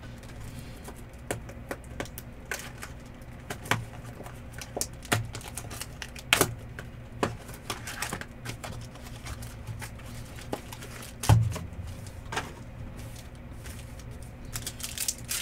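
Scattered clicks and light taps of trading-card boxes, packs and cards being handled and opened, with one heavier knock about eleven seconds in, over a steady low hum.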